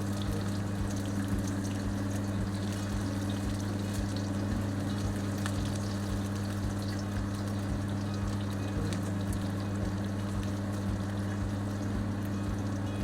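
Shallots and garlic sizzling gently in oil over low heat, with fine crackling, over a steady low hum.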